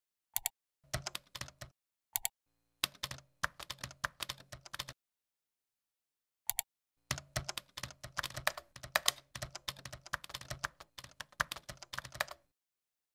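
Computer keyboard typing: three runs of rapid key clicks, the last and longest lasting about five seconds, with a few single clicks in between and dead silence in the gaps.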